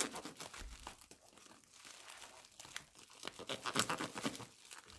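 Plastic bubble wrap crinkling and rustling as it is handled and pulled apart to unwrap a packed item. The rustling comes in two bursts, one at the start and another from past the middle, with quieter handling between.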